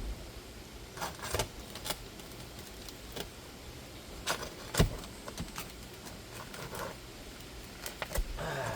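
Scattered metallic clicks, knocks and scrapes of a roofer's pry bar working under asphalt shingle tabs to pull roofing nails, with one sharp knock about five seconds in.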